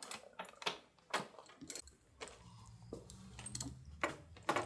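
Light metallic clicks and clinks of small screws, bolts and hand tools being handled. A low steady hum comes in about two seconds in.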